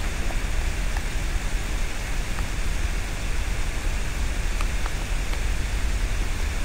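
Steady background hiss with a low hum underneath, and a few faint ticks scattered through it.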